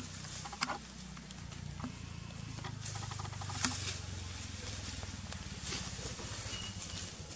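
Outdoor ambience: a steady low rumble with a few sharp clicks over it, the loudest about three and a half seconds in, and a brief run of fine ticking just before it.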